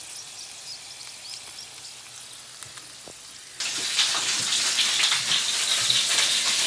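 Pork dumplings pan-frying in oil in a skillet: a soft sizzle, then from about three and a half seconds in a much louder sizzling with dense crackling.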